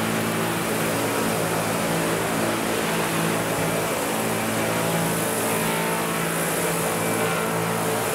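Large radio-controlled Vario CH-47 Chinook scale model helicopter flying low, its tandem rotors and drive giving a steady, even hum.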